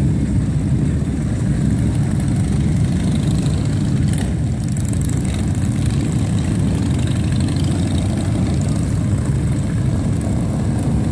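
Several motorcycle engines running at low speed as the bikes pull away one after another, giving a steady, deep engine sound.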